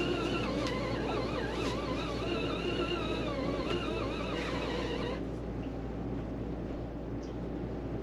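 East Doll folding portable washing machine agitating a load: its small motor whines with a wavering pitch over the churn of water and clothes, then the whine stops about five seconds in, leaving a fainter noise as the agitator pauses.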